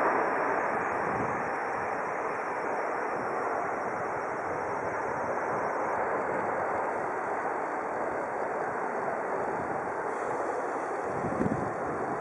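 Steady jet noise from the two CFM56 engines of a Boeing 737-700 rolling out on the runway after touchdown, easing slightly in the first seconds. Wind buffets the microphone about eleven seconds in.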